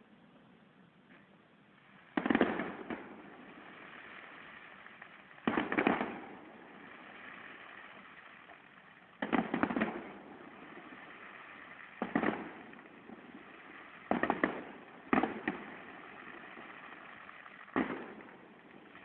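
Aerial fireworks display heard from a distance: seven shell bursts a few seconds apart. Each is a sharp bang trailing off in a rolling echo over a second or two, and some come as a quick cluster of pops.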